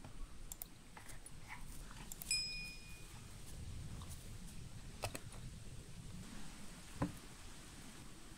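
A German shepherd dog sniffing and nibbling at tree bark: faint scattered clicks and snuffles. About two seconds in comes one short metallic ring from the steel snap hook on its collar, and a sharper click comes near the end.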